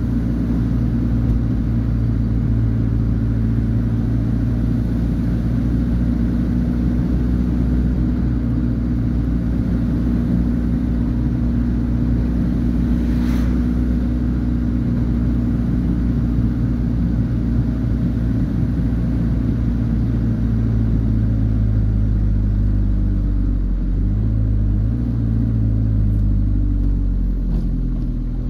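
Vehicle engine running steadily under way, with road noise; its pitch drops and shifts a few seconds before the end as the road bends. A short sharp sound about halfway through.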